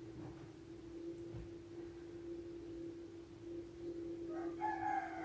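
A faint steady hum, one unchanging tone. Near the end a rooster starts crowing, one long drawn-out call.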